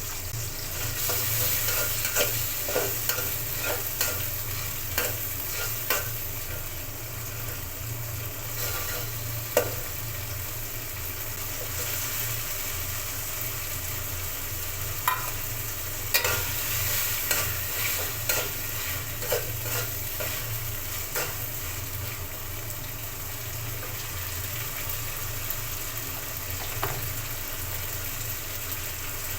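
Food sizzling in a hot pan while it is stirred, with the spatula scraping and knocking against the pan in clusters a couple of seconds in and again past the middle.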